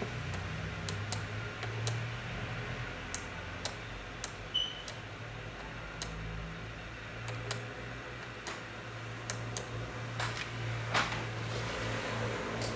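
Steady low hum with a dozen or so small clicks and ticks scattered irregularly through it, and a brief faint high beep about halfway through.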